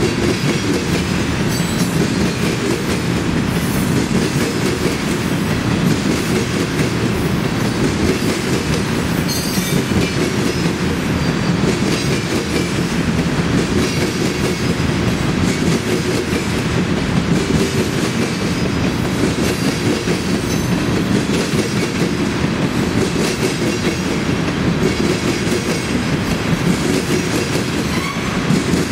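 Union Pacific freight train of tank cars rolling steadily past at trackside, steel wheels clacking over the rail joints.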